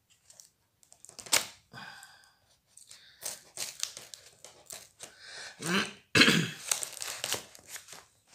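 Knife cutting and scraping through the packing tape of a cardboard parcel, with the tape tearing and the paper envelope on it crinkling, in irregular strokes; the loudest comes about six seconds in.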